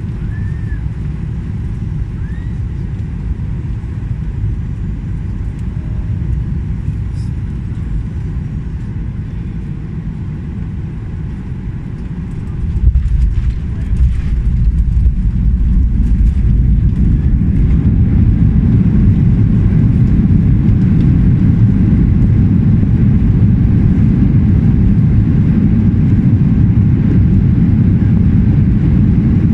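Airliner cabin noise during landing: a steady low rumble. About thirteen seconds in there is a sudden jolt, and the rumble then grows louder and stays loud, as at touchdown and the roll-out along the runway.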